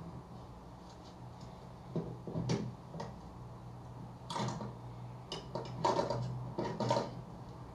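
Knocks and clanks from a gas-station fuel pump as its nozzle is handled, about eight sharp strikes, most of them in the second half, over a steady low hum.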